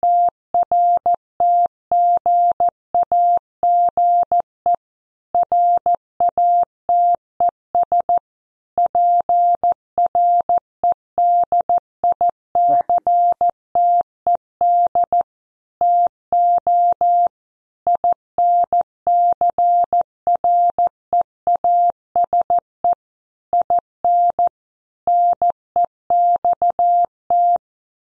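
Morse code sent at 14 words per minute: a single-pitched electronic beep keyed on and off in short dits and longer dahs, with short gaps between letters and longer gaps between words, spelling out a news headline.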